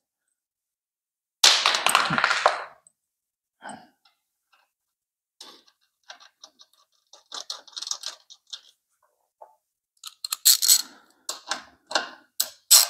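Metal parts and bolts being handled while a swing-arm removal bracket is bolted to a motorcycle's footrest hanger mount. There is a loud clatter about a second and a half in, then scattered small clicks and ticks. Near the end comes quick, even clicking as an M8 bolt is tightened.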